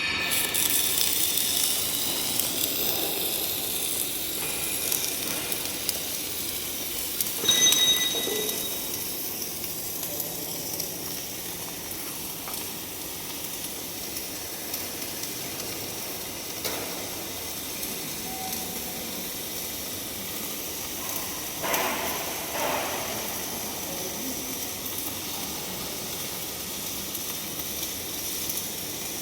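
MIG welding arc on a pipe, a steady sizzling hiss, a little louder over the first few seconds, with a short louder flare about eight seconds in.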